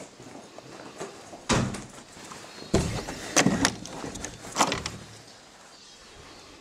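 A door being handled: a series of loud bangs and knocks, the first about a second and a half in, several close together around three to four and a half seconds, then quieter.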